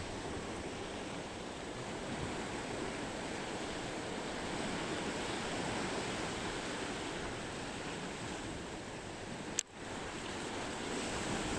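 Ocean surf washing steadily against a rocky shore. A short sharp click with a brief dropout comes about ten seconds in.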